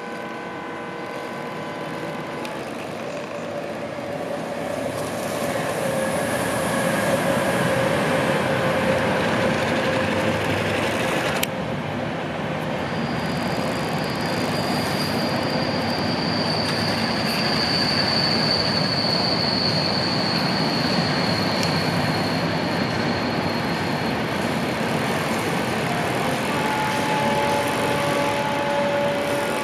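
A 1/16-scale RC excavator's 3D-printed hydraulic pump and drive running under load: a steady mechanical noise with a thin whine. It builds over the first few seconds, and a higher whine holds through the middle, with one sharp click about a third of the way in.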